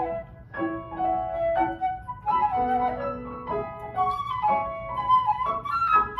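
Concert flute and grand piano playing a live duet, the flute carrying the melody in a series of held and moving notes over the piano.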